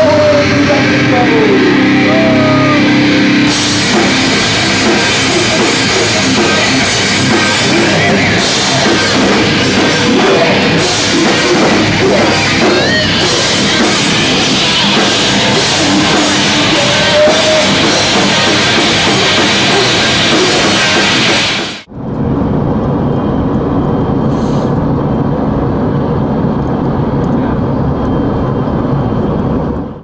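Loud rock music with drums. It cuts out abruptly about 22 seconds in, then goes on sounding duller, with the treble gone.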